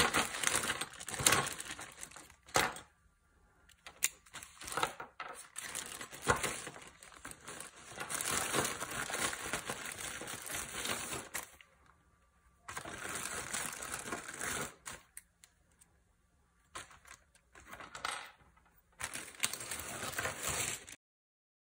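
Plastic zip-lock bag crinkling in irregular bursts as hands rummage in it for MC4 solar connectors, with a few small clicks as the plastic connectors and metal crimp pins are set down on a wooden table. The sound cuts off abruptly near the end.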